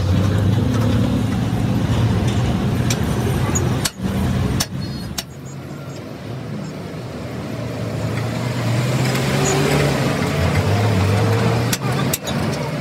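Motor vehicle engine noise, as from road traffic running close by. It drops off about five seconds in and builds back up toward the end.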